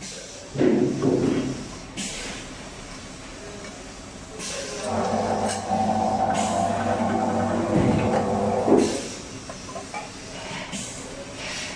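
Benchtop tin can sealer (can seaming machine) on a test run after adjustment: its motor hums steadily for about four seconds while it seams a lid onto a tin can, then stops. Sharp clicks and knocks of cans being handled come before and after, with a loud clatter near the start.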